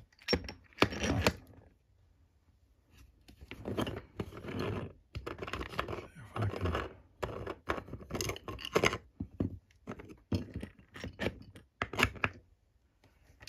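Plastic lockpicking-vise parts and threaded knobs being handled and fitted together. A few clicks come first, then after a short pause a long run of scrapes, clacks and knocks, the sharpest near the end.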